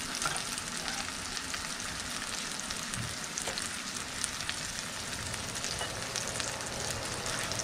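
Mangrove snapper fillets frying in hot oil in a skillet: a steady sizzle with scattered small crackles.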